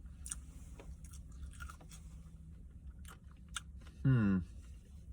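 A person chewing food close to the microphone, with small wet clicks and crunches, and a brief hummed "mm" about four seconds in.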